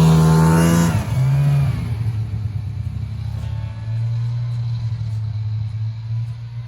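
Small vehicle engine revving, dropping in pitch about a second in and again near two seconds, then running steadily at a lower speed.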